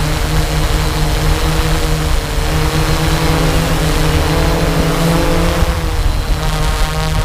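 Motor and propellers of a small aircraft humming steadily, heard from on board. The pitch wavers a little, and a higher whine joins near the end.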